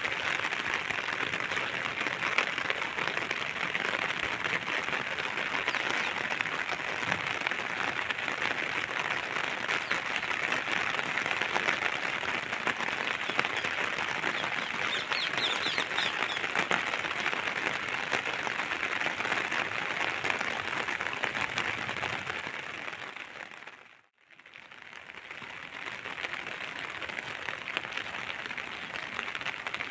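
Steady rain falling and pattering on surfaces, with a few brief bird chirps about halfway through. The rain fades out to near silence about two-thirds of the way in, then fades back up.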